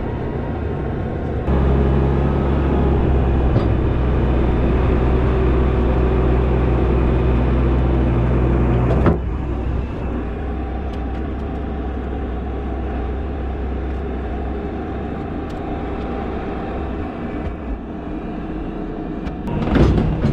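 A motor vehicle's engine running steadily, in a few segments that change abruptly about a second and a half in and again about nine seconds in.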